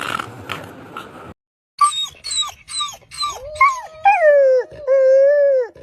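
A dog gives a run of short yelps, each falling in pitch, then breaks into long drawn-out howls. Before that, a rushing noise runs for about a second and stops suddenly.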